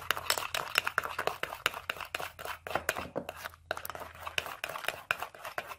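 A metal spoon beating fermented shrimp paste sauce in a ceramic bowl. The spoon clicks against the bowl about four to five times a second as the sauce is whipped frothy, with a brief pause about three and a half seconds in.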